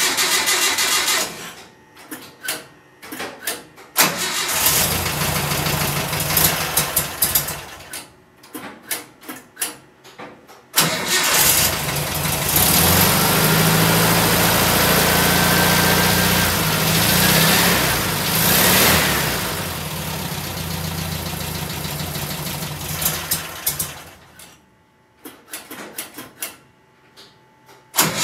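Vehicle engine being started on a battery jumper: stretches of cranking, a short run that dies, then it catches and runs steadily for about thirteen seconds with a brief rise in revs before cutting out.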